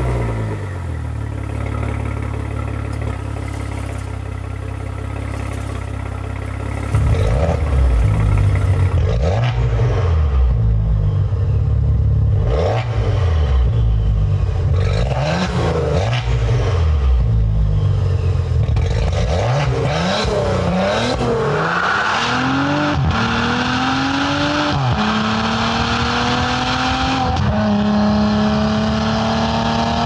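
2017 Maserati Levante's V6 engine idling steadily after start-up, then revved several times in place, each rev rising and falling. From about two-thirds of the way in it accelerates hard, the pitch climbing and dropping sharply at each upshift, about every two to three seconds.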